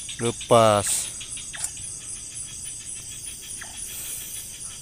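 Night insect chorus: a fast, even pulsing trill over a steady high drone, with a brief lower chirp twice.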